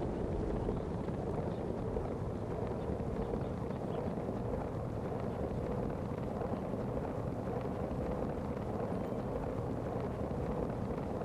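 Steady wind noise rumbling on the microphone, even throughout with no distinct events.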